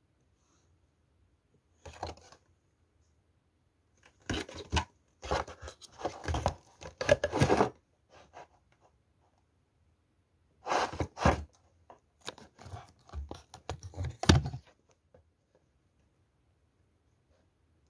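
Cardboard and plastic packaging of a chocolate-making kit being torn open and handled: a short burst about two seconds in, then two longer spells of tearing and rustling.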